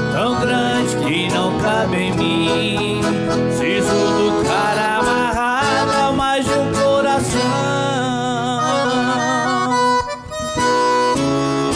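Instrumental passage of a Brazilian country (caipira) song: accordion carrying the melody over guitar accompaniment, with a brief drop-off about ten seconds in.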